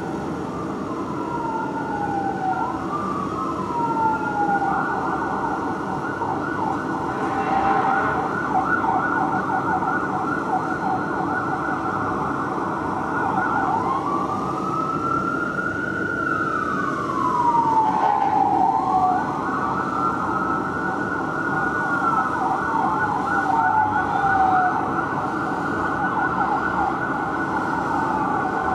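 Fire truck sirens from Engine 7 and Ladder 7 responding: two sirens overlap, wailing in slow rising and falling sweeps with stretches of fast yelp, over low traffic rumble.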